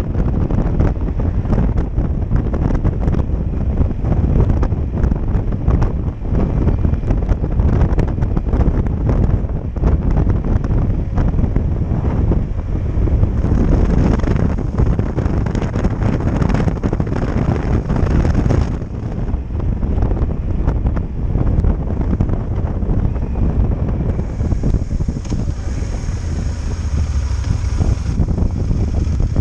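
Wind buffeting the microphone of a camera on a moving motorcycle, mixed with the running of the Yamaha Super Tenere XT1200ES's parallel-twin engine. The rumble is steady and heavy at the low end, easing a little about two-thirds of the way through.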